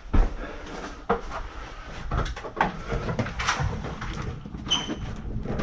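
A run of irregular knocks, clicks and rattles, as of tools and parts being handled during repair work on a condensate drain line, with a short high squeak near the end.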